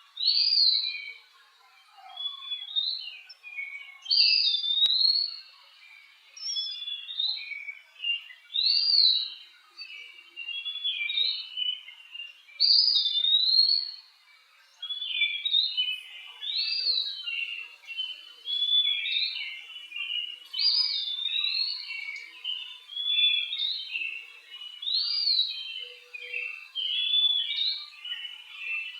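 A bird whistling a repeated song phrase about every two seconds, each phrase opening with a loud rising-then-falling whistle and trailing off into lower, quieter notes.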